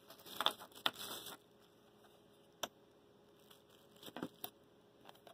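Clear plastic wrapping crinkling and small metal Stirling engine parts clicking as they are handled and set down on a wooden table: a burst of rustling in the first second and a half, a single click a little later, and a few more clicks and rustles about four seconds in.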